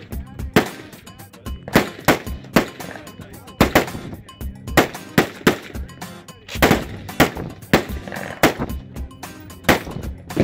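AR-15-style semi-automatic rifle shots in a quick, uneven string, about two a second, some louder than others. Background music runs underneath.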